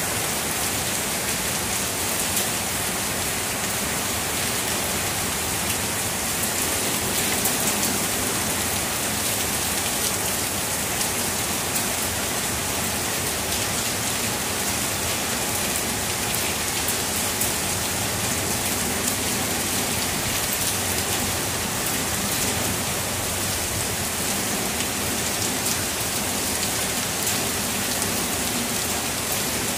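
Heavy rain falling steadily: an even, unbroken hiss with scattered patter of drops.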